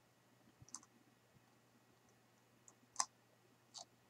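Near silence with a few short clicks of fingers tapping and handling a Samsung Galaxy Note 3 smartphone, the sharpest about three seconds in.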